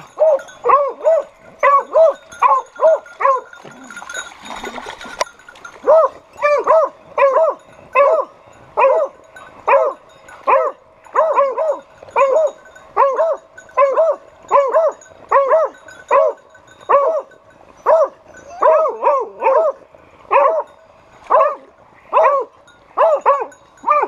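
Beagles baying over a wild boar shot in the river: loud, repeated calls at about two a second, with a break of about two seconds a few seconds in.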